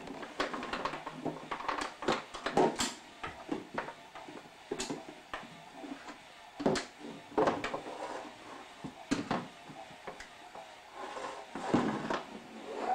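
Plastic toys being handled and knocked together, giving scattered irregular clicks and clatters.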